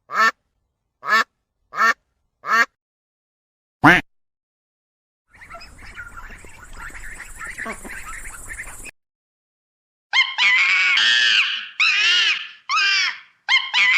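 A string of animal calls: five short, sharp calls about a second apart, then a softer stretch of busy chatter, then after a pause a run of louder, longer calls that rise and fall in pitch.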